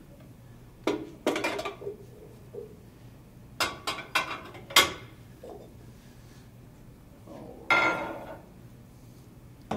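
Bowls and dishes clattering and clinking as someone rummages through a lower kitchen cabinet for a bowl: a string of separate sharp knocks, then a louder clatter near the end as a glass mixing bowl is lifted out.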